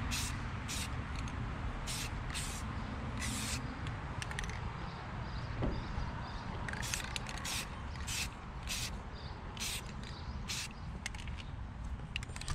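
Aerosol spray can of Rust-Oleum Trim and Bumper paint hissing in many short bursts, laying a light first coat, with a pause of about two seconds midway.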